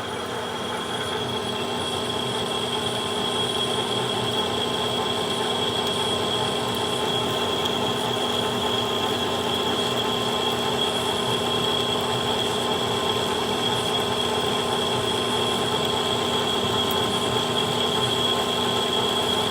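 Metal lathe running and turning a 4140 steel valve blank, a steady cutting sound with a constant high whine over the machine's hum.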